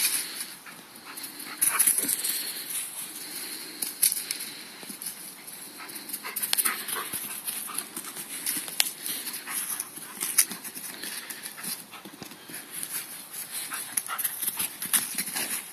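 A young Komondor dog running about on grass: quick irregular scuffs, thuds and rustles, with dog sounds mixed in.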